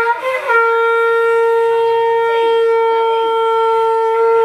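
Conch shell (shankha) blown in one long, loud note that wavers for about half a second and then holds steady, sounded as part of a Hindu puja.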